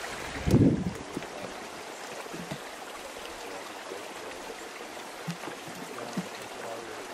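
Steady rushing outdoor noise, water or wind, with a short low thump about half a second in.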